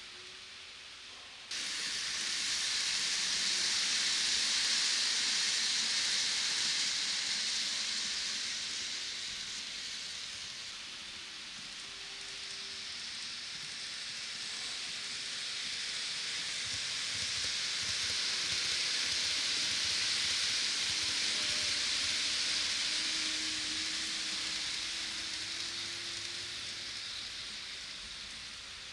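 N-gauge model electric train running along the track, a steady hiss of wheels on rail and the small motor that starts suddenly, swells, dips and swells again, then slowly fades as the train moves away.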